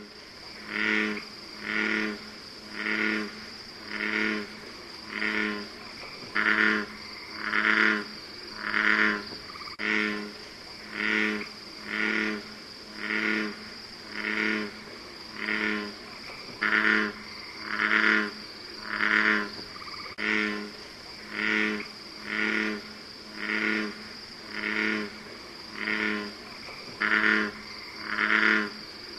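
American bullfrog calling: deep croaks repeated steadily about once a second. A steady high-pitched tone runs behind them.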